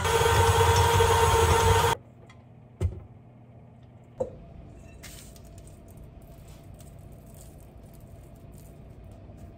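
KitchenAid Classic stand mixer running with its flat beater through dough, a steady hum that stops suddenly about two seconds in as the mixer is switched off. Then two sharp knocks, about a second and a half apart, amid light handling noise.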